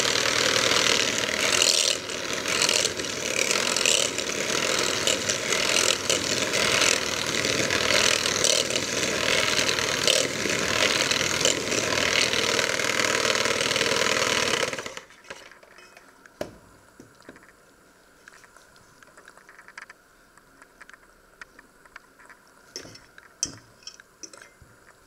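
Electric hand mixer running, its beaters whisking eggs in a stainless steel bowl, switched off about fifteen seconds in. After that only a few faint clicks and knocks.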